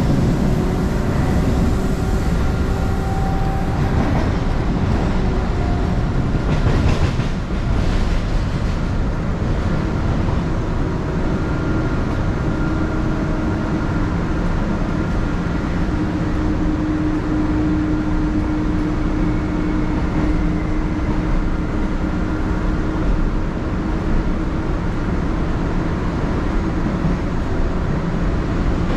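Belo Horizonte metro train running on the rails: a steady rumble of wheels with a humming motor tone, and a short clatter about seven seconds in.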